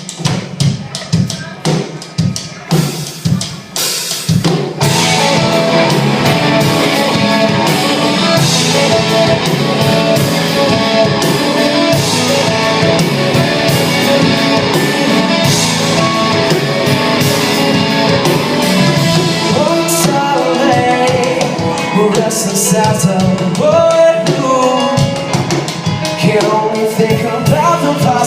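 Band music: a song opens with drums alone for about four seconds, then the full band comes in with a steady beat, and a singing voice joins about two-thirds of the way through.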